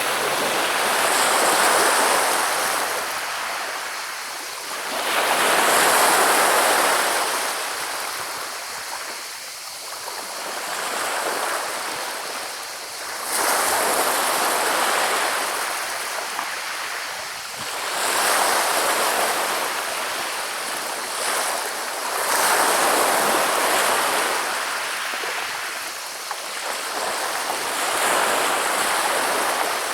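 Sea waves washing onto a pebble beach, the water rolling and rattling the pebbles, in slow swelling surges every four to five seconds.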